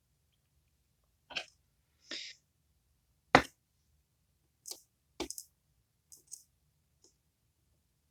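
Handling of a disassembled pin-tumbler lock's small metal parts on a desk: a string of light clicks and taps, with one sharper knock about three and a half seconds in.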